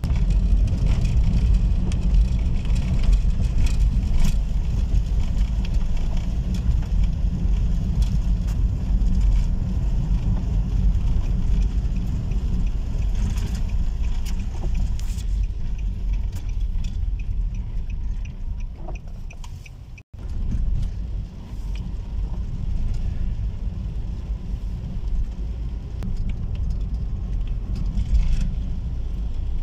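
Car cabin road noise while driving on a wet road: a steady low rumble with scattered light ticks above it, cut by a brief dropout a little over two-thirds of the way through.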